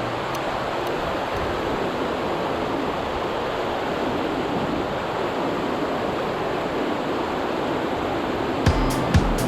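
Mountain stream rushing steadily. Near the end a few short low thumps begin.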